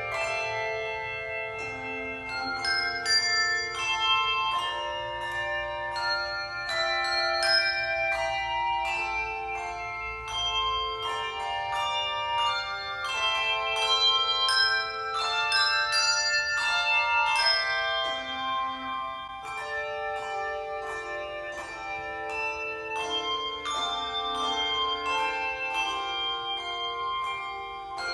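Handbell choir playing a piece: many bells struck in turn and together, their notes overlapping in chords and ringing on.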